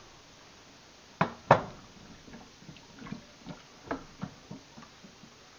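Two sharp knocks, then a wooden spoon stirring cubed potatoes in water in an aluminium stockpot, knocking lightly and unevenly against the pot a couple of times a second.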